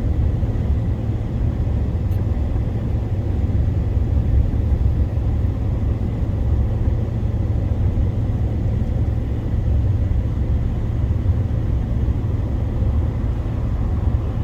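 Pickup truck driving at highway speed, heard from inside the cab: a steady low rumble of engine and road noise.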